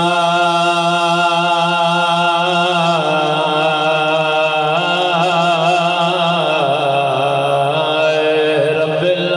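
A man's voice chanting a melodic recitation into a microphone in long held notes, the pitch stepping down about three seconds in and again near seven seconds.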